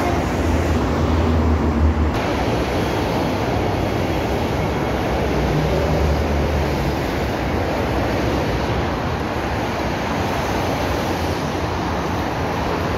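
Steady rushing noise of road traffic on the freeway running beside the platform, with low rumbles swelling briefly about a second in and again around six seconds in as heavier vehicles pass.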